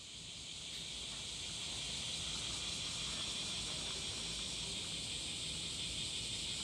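Summer cicada chorus, a steady high sizzling hiss that swells in over the first second or so.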